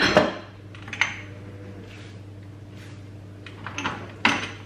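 Kitchen utensil and spice-jar clinks on a countertop: a light clink against the glass bowl at the start and another about a second in, then a quiet stretch, then two sharper knocks near the end as a spice jar is handled, the second the loudest. A steady low hum runs underneath.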